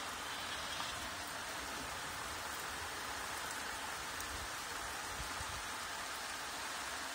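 Steady rain falling: an even hiss of drops on surfaces, with no breaks.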